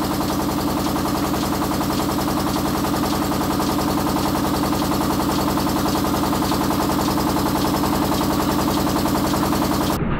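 Motor-driven corn mill running and grinding corn dough: a loud, steady, fast rattling drone with a constant hum. It cuts off abruptly near the end.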